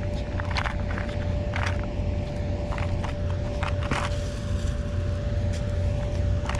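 Footsteps on gravelly ground and plastic bags crinkling, in short irregular crackles, over a steady low drone with a constant faint tone.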